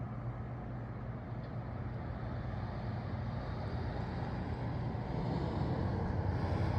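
Road traffic noise: a steady hiss and low hum of passing vehicles, growing louder toward the end as one draws nearer.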